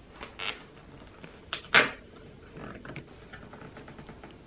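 A parcel of book mail being handled and opened: scattered rustles and knocks of packaging, with one louder rustle a little under two seconds in.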